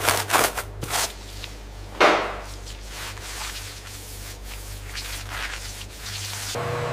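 Stiff bristle brush scraping over a hard cheese rind in a few quick strokes, with one more stroke about two seconds in, then a cloth rubbing softly over the rind. A steady low machine hum runs underneath and gets louder near the end.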